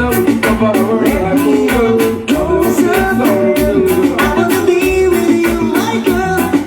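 Loud music with a steady beat and a singing voice, in a reggae or dancehall style.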